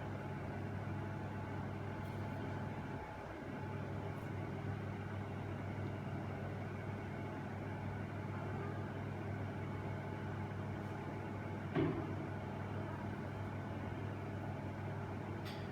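Steady low background hum, with one short knock about twelve seconds in.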